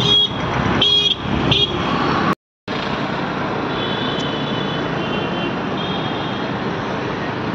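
Steady outdoor background noise of a crowded open-air festival with short high tones now and then. The sound drops out completely for a moment about two and a half seconds in.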